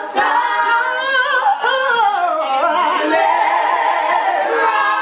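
Voices singing a cappella with no instruments: long held notes with pitch bends and runs.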